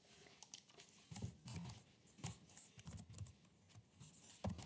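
Faint typing on a computer keyboard: irregular key clicks as a line of CSS is entered.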